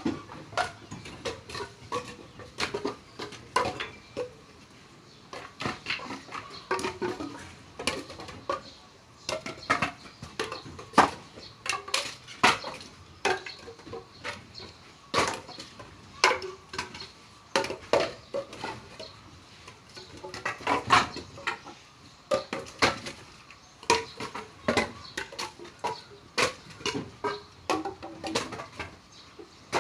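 Pieces of timber being unloaded by hand, knocking and clattering against one another as they are thrown down and stacked: a steady run of sharp, irregular knocks, one to three a second.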